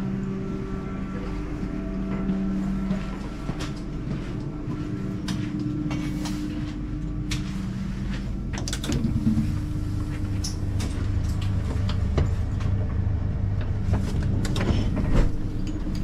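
Southeastern electric train's steady hum with scattered clicks and knocks; a deeper hum sets in about nine seconds in and holds.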